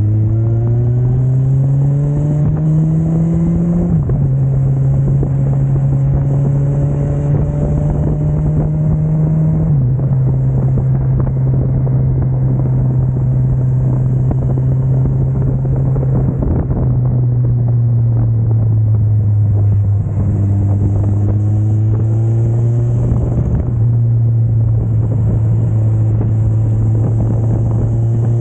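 Kawasaki Versys 1000 SE's inline-four engine running under way through an Akrapovic titanium slip-on exhaust with its silencer insert removed. The engine note climbs and drops at upshifts about four and ten seconds in, holds steady, eases off, then climbs again to another shift near the end.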